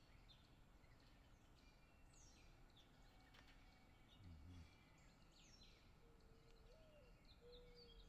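Faint chirps of small songbirds, quick high falling notes scattered throughout. Near the end a mourning dove gives a low coo that rises, falls, then holds.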